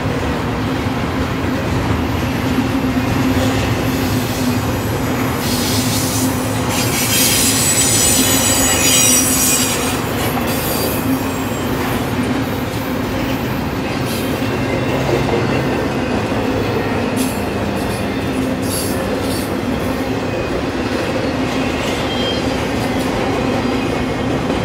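Double-stack intermodal freight cars rolling past: a steady rumble and clatter of steel wheels on rail, with a high wheel squeal from about five seconds in to about ten seconds in, and a few sharp clicks later on.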